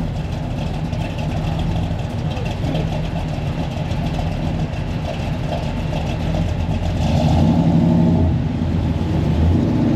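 A car engine running at low revs, getting louder about seven seconds in, with people talking in the background.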